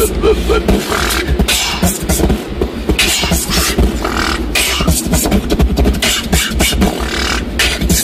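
Vocal beatboxing: fast, dense mouth-made kicks, snares and clicks in a steady groove, broken by several longer hissing sounds.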